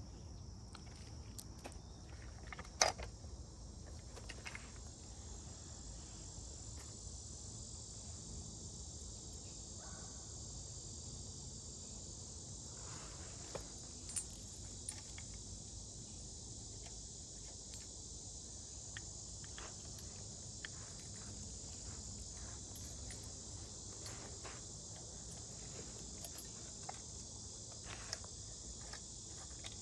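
Steady high-pitched chorus of insects, with scattered light clicks and one sharper knock about three seconds in from chainsaw parts being handled.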